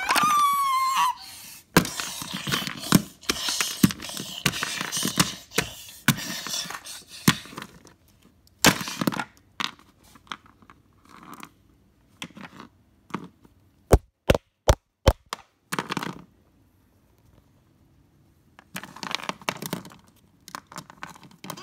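Handling noise as plastic toys and the phone are moved about: rustling, scraping and knocks, with four sharp clicks in quick succession about two-thirds of the way through.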